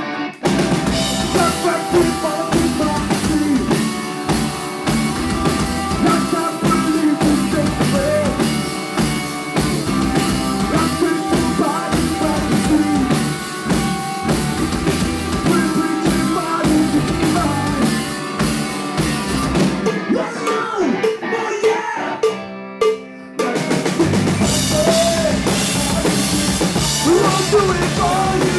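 Live punk rock band playing a loud, driving song on electric guitars, bass and drum kit. About two-thirds of the way through, the drums and low end drop out for a short, sparse break, then the full band comes back in.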